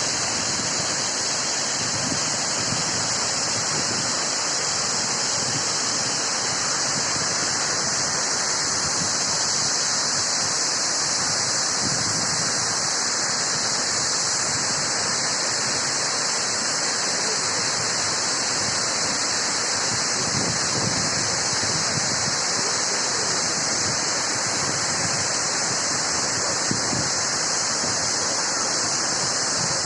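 Uchan-Su waterfall: falling water rushing steadily and unchanging.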